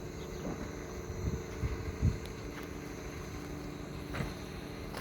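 A machine engine humming steadily, with wind rumbling on the microphone and a few low thumps, the loudest about two seconds in.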